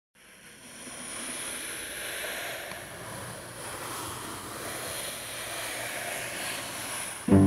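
Steady rushing noise with no clear pitch. Near the end a bowed low string instrument comes in loudly on a sustained note.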